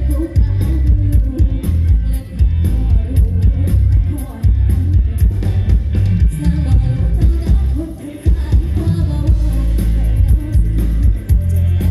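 Live band music played loud through a PA, bass-heavy, with a woman singing lead over keyboards, bass and drums.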